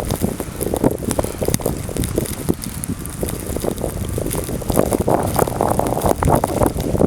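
Blizzard wind buffeting the microphone: a loud, uneven low rumble that swells and drops with the gusts.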